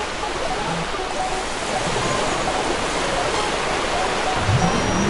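A steady rushing noise like running water, with a low sweep rising in pitch near the end.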